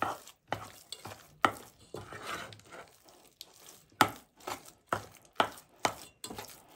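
Spoon stirring thick dough in a bowl, knocking against the bowl in irregular strokes about two a second.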